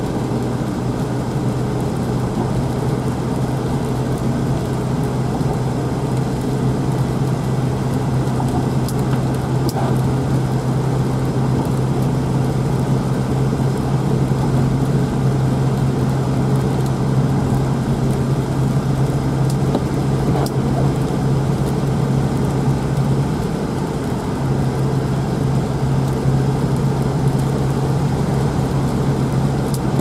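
A car being driven along a road: a steady drone of engine and tyre noise, with a strong low hum throughout.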